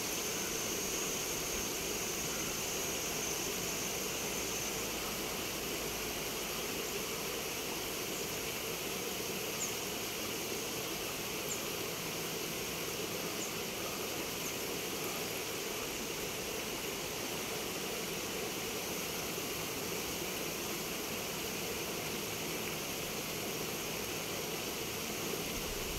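Steady outdoor background hiss with a high, steady insect drone that fades out after about five seconds, and a few faint ticks near the middle.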